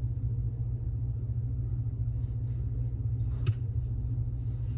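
Faint ticks and scrapes of a lock pick working the pins of a Mul-T-Lock Classic Pro cylinder, with one sharper click about three and a half seconds in. A steady low rumble sits under it.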